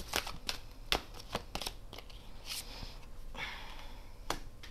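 A deck of tarot cards being shuffled and handled: a quick run of sharp card snaps, then a sliding rustle of cards about two and a half to three and a half seconds in, and one last snap near the end.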